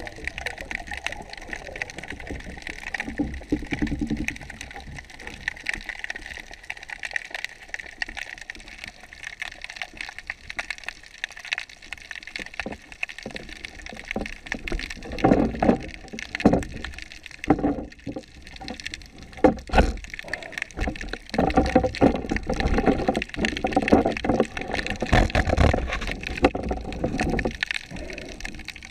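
Water gurgling and sloshing around an underwater camera, with irregular knocks and low bumps that come thicker and louder in the second half.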